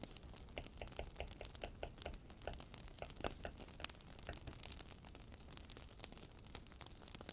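Many light, irregular clicks and ticks over a faint steady low hum.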